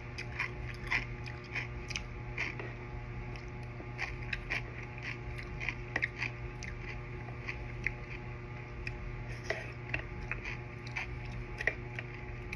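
Close-miked eating sounds: a string of small, irregular clicks and smacks from chewing and utensils, over a steady low hum.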